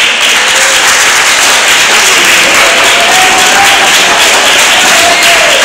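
Audience applauding in a hall, a dense and loud sustained clatter of clapping, with faint voices underneath.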